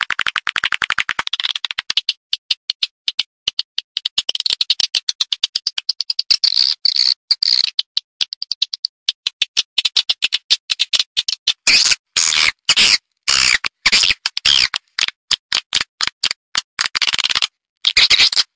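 Edible-nest swiftlet lure-call recording: rapid runs of dry clicks mixed with twittering chirps, denser and chirpier in the second half. It is a calling track played to draw swiftlets into a swiftlet nesting house.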